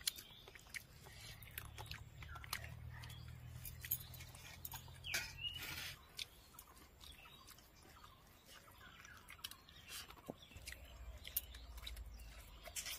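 Faint sounds of people eating: quiet chewing and small clicks, with birds chirping now and then. A low rumble runs through the first half.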